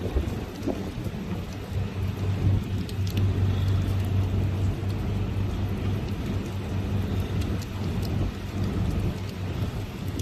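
Typhoon rain and wind noise, with scattered drop ticks and a steady low hum underneath that fades near the end.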